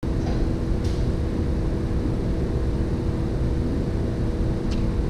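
Steady low machinery hum and rumble with a constant drone, and a few faint ticks about a second in and near the end.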